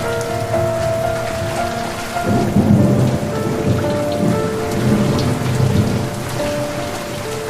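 Steady rain falling, with a roll of thunder that rumbles in about two seconds in and dies away a few seconds later.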